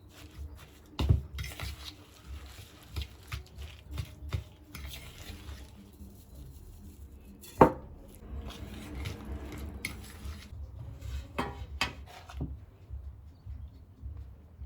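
Kitchen dishes and utensils clinking and knocking as they are handled, with a sharp knock about eight seconds in.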